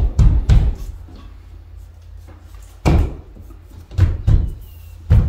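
Irregular knocks and thumps of an LED skylight panel's frame being pushed up into its opening in a plasterboard ceiling, a few at the start and more about three and four seconds in.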